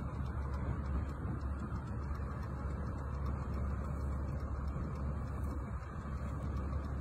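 Steady low rumble of idling fire truck engines on the bridge.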